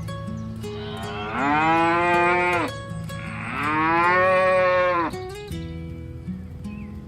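Cow mooing: two long moos, one about a second in and another about three and a half seconds in, each rising at the start and dropping away at the end.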